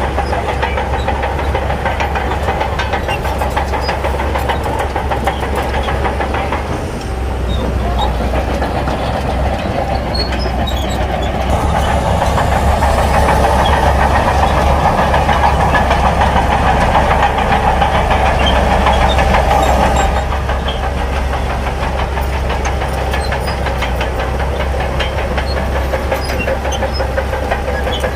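Heavy diesel earthmoving machinery working, its engine running steadily with a light clatter throughout; the engine grows louder under load for about eight seconds in the middle, then eases back.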